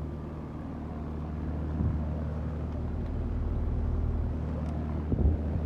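Outdoor heat pump condensing unit running: a steady low hum from the compressor and condenser fan, with a couple of soft bumps about two seconds in and near the end.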